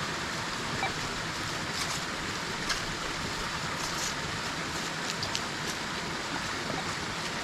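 Steady rush of a small waterfall and stream, with a few faint clicks over it.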